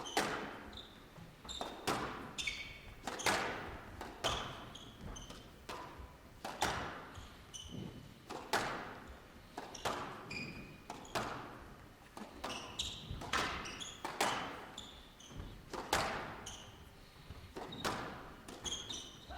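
Squash rally: the ball smacking off rackets and walls about once a second, each hit ringing briefly in the hall, with short squeaks of shoes on the court floor between hits.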